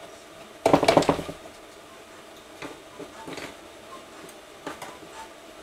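Metal clinking and rattling of starter gears being handled and fitted onto a Suzuki DR-Z400 engine: a short burst of rattling about a second in, then a few light clicks and knocks.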